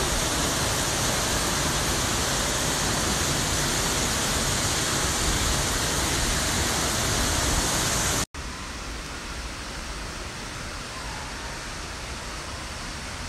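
Steady rushing of a waterfall pouring down a rock wall. About eight seconds in it cuts off abruptly and a much quieter steady background hiss follows.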